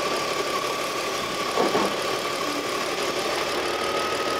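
BMW M54 straight-six idling, with the hiss of aerosol parts cleaner sprayed around its intake and brake booster hose to find a vacuum leak. A steady whine creeps slightly upward in pitch as the idle rises on the cleaner, a sign that air is leaking in there.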